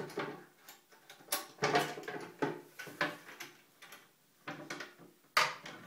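Irregular hard plastic knocks and clatters, about half a dozen sharp ones, as a bidet attachment plate is handled and held in place over the bolt holes of a ceramic toilet.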